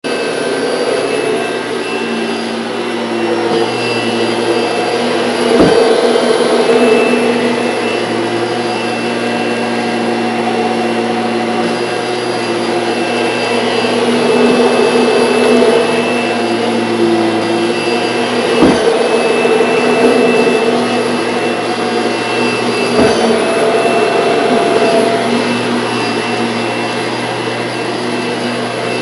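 Household vacuum cleaner running steadily, its motor hum and airflow hiss rising and falling a little in level. Three brief knocks break through.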